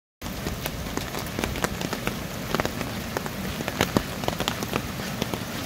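Heavy rain falling steadily, with frequent sharp, close drop hits standing out from the hiss. It cuts in abruptly just after the start.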